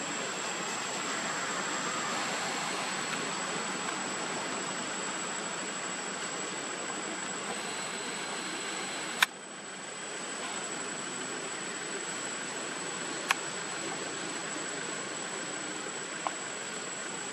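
Steady outdoor background hiss with a thin, high, steady whine, broken by a sharp click about nine seconds in and two fainter clicks later.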